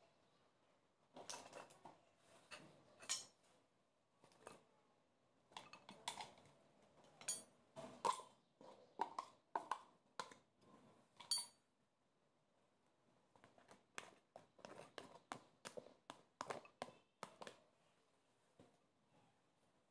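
A spoon clinking and scraping against a stainless steel ring mold as rice salad is spooned in and packed down, in clusters of soft taps with a few sharper ringing metal clinks about halfway through. A second run of lighter taps and scrapes follows after a short pause.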